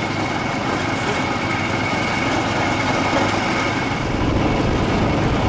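Garden tractor engine running on a trail, a rough steady drone with a thin high whine over it. About four seconds in the whine fades and the deep rumble grows heavier.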